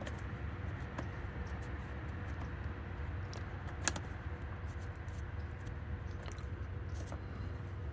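Faint clicks and rustling as a cord zipper pull is worked through a tool bag's zipper slider, with one sharper click about four seconds in, over a steady low hum.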